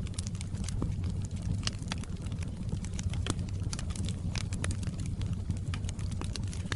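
Wood fire burning in a fireplace: irregular sharp crackles and pops, several a second, over a steady low rumble.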